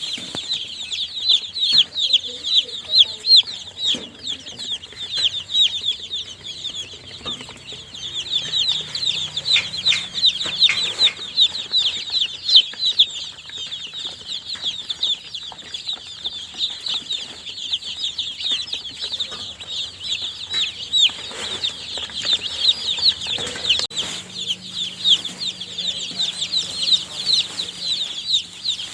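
A group of newly hatched baby chicks peeping continuously, many short high-pitched chirps overlapping in a dense, busy chorus.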